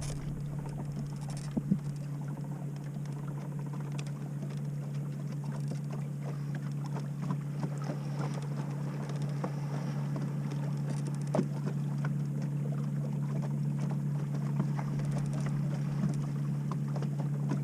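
Boat motor running at a steady low hum as the boat moves slowly, with a few faint knocks scattered over it.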